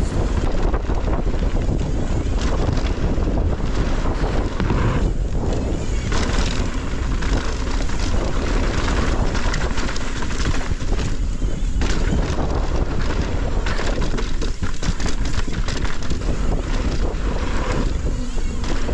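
Wind buffeting the microphone on a mountain bike descending a bike-park trail, with constant rattling and knocking from the bike and its tyres over rough ground.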